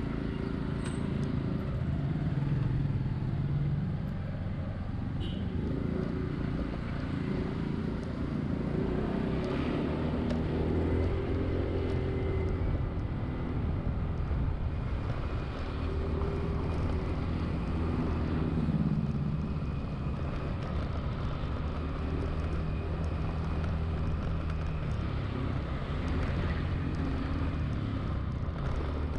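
Honda Zoomer-X scooter's engine running while riding in traffic, its pitch drifting up and down as it speeds up and slows, over a steady rumble of road and traffic noise.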